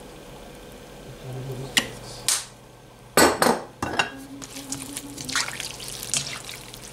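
Tongs clacking against a nonstick wok, then scraping and clicking as stir-fried rice noodles and vegetables are tossed. The loudest sound is a few sharp clacks between about two and four seconds in, over a low steady hum.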